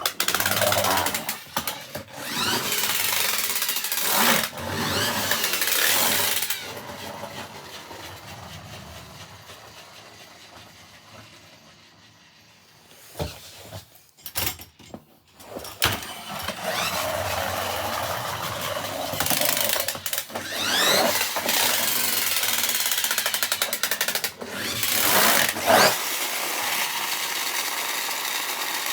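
Hummer making a continuous whirring mechanical noise as it moves, rising and falling in pitch. The noise fades to a lull about halfway through, with a few knocks, then returns steadily.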